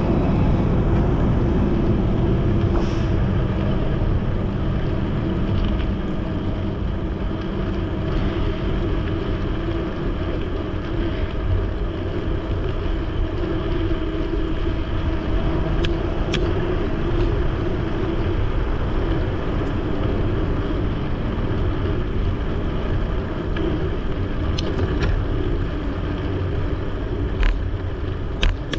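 Steady low rumble of riding a Dahon Mu D10 folding bicycle: wind buffeting the camera microphone and the tyres rolling on the bike lane. A few sharp clicks, one about midway and two near the end.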